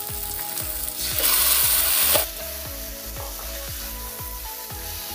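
Marinated chicken pieces tipped into hot oil with fried onions in a kadai, sizzling loudly for about a second, then frying more quietly as a metal spatula stirs them.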